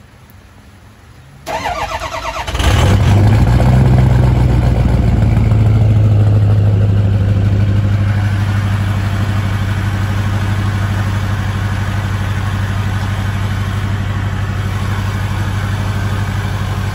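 2003 Ford F-250's 6.0-litre Power Stroke turbo-diesel V8, straight-piped through a 3.5-inch exhaust, cold-started. The starter cranks for about a second, the engine catches and runs loud, then settles into a steady idle.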